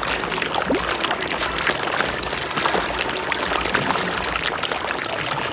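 A mass of large broodstock fish thrashing and splashing at the surface of a fish-farm tank in a feeding frenzy: continuous watery churning with many small slaps, the water described as boiling.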